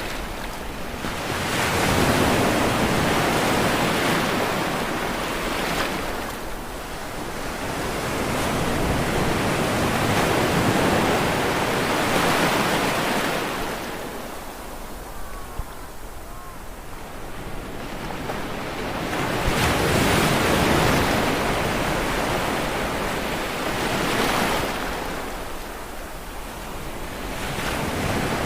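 Sea waves rushing in and washing back, the surf swelling and fading in slow cycles roughly every eight to ten seconds.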